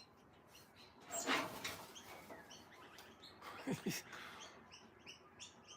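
Faint bird calls: soft, short chirps, with a brief rustling burst about a second in and a quick run of high chirps near the end.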